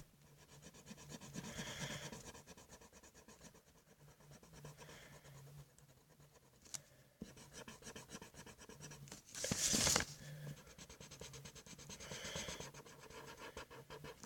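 Black marker drawing on paper: faint scratchy pen strokes, with one louder, brief scrape about ten seconds in.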